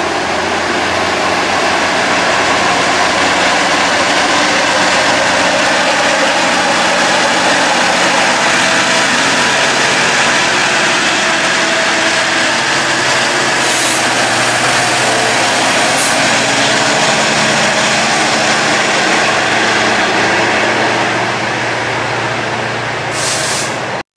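GO Transit bilevel coaches rolling past on the rails, then the MP40 diesel locomotive pushing at the rear going by under power, its engine running loud with a low steady drone. A few short high hisses sound over it, and it fades about three seconds before the end.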